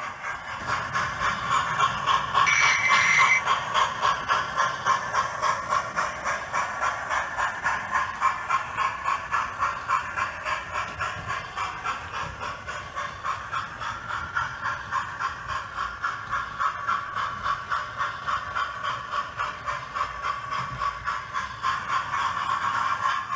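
Model railway train running on the layout's track: a steady mechanical running sound with an even clicking about twice a second, and a brief brighter hiss about three seconds in.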